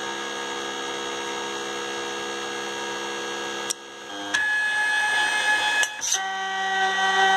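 Modified 3D printer's stepper motors whining in steady tones as the machine moves to dispense cheese. Its pitch jumps to new notes a few times in the second half, and it gets louder toward the end.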